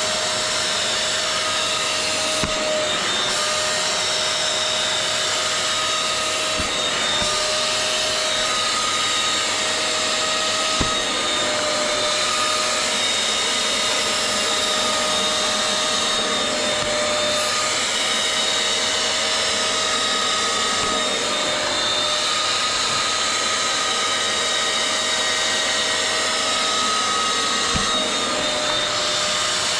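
Vacuum cleaner running steadily with a whining motor tone, its pitch dipping briefly a few times as the nozzle works over the wet Alcantara seat fabric, drawing out the dirty washing-up-liquid foam.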